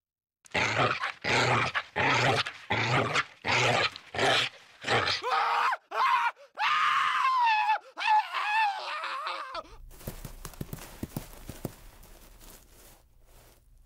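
Cartoon puppies barking, a quick run of about nine evenly spaced barks, followed by a wavering, whining howl. After that comes a much quieter crackling noise with scattered clicks that fades away.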